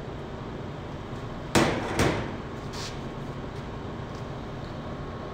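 Two sharp metal knocks about half a second apart, with a fainter clink after, from a stainless-steel saucepan knocking against steel as the last of the caramel is emptied into a steel bowl. A steady kitchen background noise lies under them.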